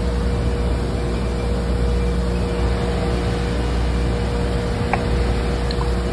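Steady mechanical hum of shop machinery: a low drone under an even noise, with one constant pitched note held throughout. A couple of faint light clicks about five and six seconds in.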